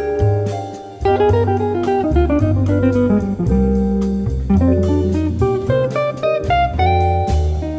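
Instrumental music in a light jazz-blues style: a plucked guitar melody over a bass line, with drum hits.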